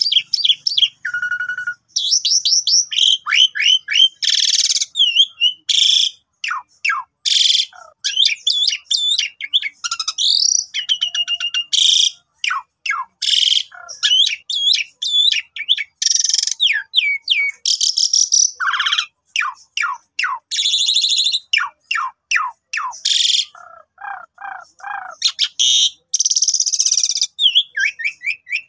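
Asian pied starling (jalak suren) in full, continuous song: quick runs of falling whistled notes mixed with harsh, hissing chatter, broken only by short pauses.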